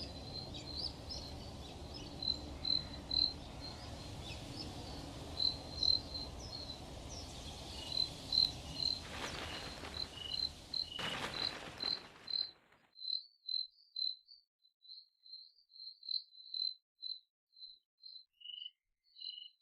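Crickets chirping at night: a steady train of short, high chirps, roughly two or three a second. A low background noise bed drops out abruptly about two-thirds of the way through, leaving only the chirping, and a second, lower-pitched chirper joins in briefly near the end.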